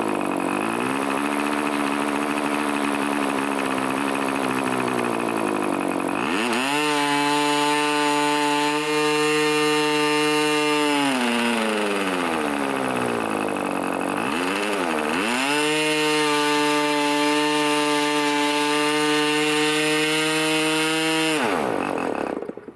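Irvine 20 model-aircraft diesel engine turning a 10x6 propeller. It starts at idle, is opened up to full speed of just over 9,000 rpm about six seconds in, dips back briefly about two-thirds of the way through, opens up again, and cuts off suddenly near the end. The idle may be a little rich, as the owner judges from fuel spitting out of the venturi.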